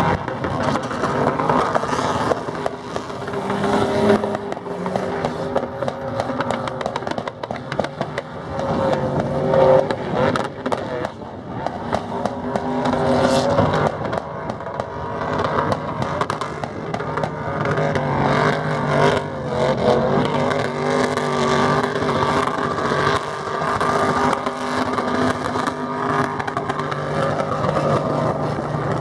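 Nissan Patrol 4x4's engine running hard, revving up and easing off again and again.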